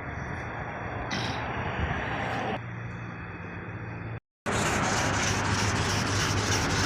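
Steady background noise with a low hum. Then, after a brief cut a little past halfway, sandpaper rubs on a dulled plastic headlamp lens in quick, regular back-and-forth strokes, louder than the background.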